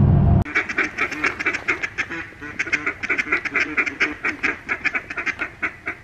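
Engine rumble inside a vehicle cab for the first half second, cut off suddenly. Then many ducks quack in rapid, overlapping calls, several every second.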